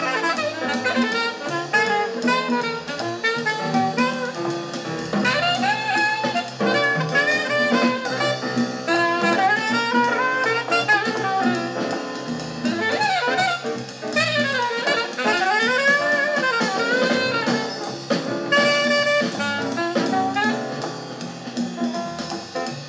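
Jazz record playing on the RetroLife UD006 turntable through its bookshelf speakers: a saxophone-led tune over a drum kit, at a steady level.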